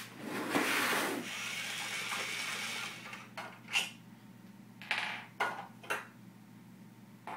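Cordless drill running for about two seconds, then several short clicks and knocks as the drill and the toy car are handled.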